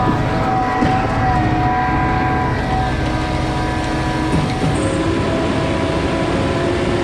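Concord concrete pump truck running under load, a steady mechanical din with a whine whose pitch shifts about four to five seconds in. This is the noise the operator calls nerve-wracking, coming while the pump's S-tube shift valve acts up; its spring is thought to be worn.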